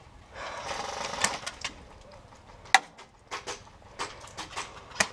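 Airsoft gunfire during a game: about eight sharp, irregularly spaced snaps of shots and BB hits. A brief rushing noise comes about half a second in.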